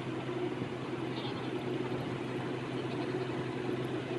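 Engine running steadily at an even speed, a constant low hum with no change in pitch.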